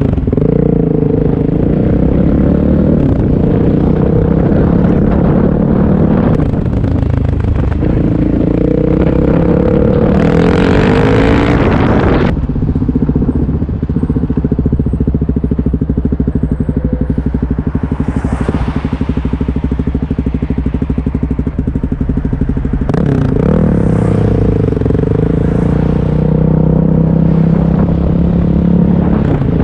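Suzuki DR-Z400S single-cylinder four-stroke engine running through an MRD Z-Pro exhaust with its "quiet" baffle fitted, ridden on the road. The engine note rises and drops several times as it accelerates and changes gear, with a brief rush of noise about ten seconds in.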